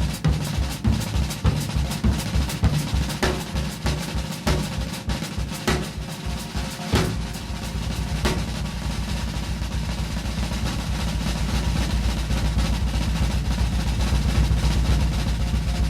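Jazz drum kit soloing: crisp snare and cymbal strokes over a pulsing bass drum. About seven seconds in, it turns into a continuous roll on the low drums that slowly grows louder.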